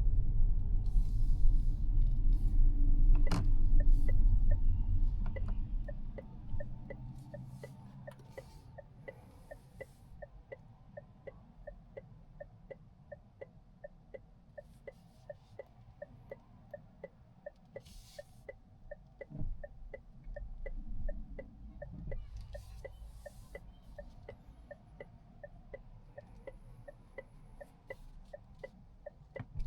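Cabin sound of a Mazda 6e electric car: low road rumble for the first few seconds fades away as the car slows. Then the turn-signal indicator ticks steadily, about two to three clicks a second, with a few faint rustles.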